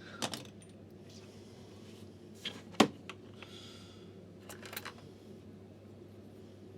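Small clicks and light scraping of a flat screwdriver working at the switches inside an opened hairdryer: about half a dozen sharp ticks, the loudest near three seconds in, with faint scratching between them.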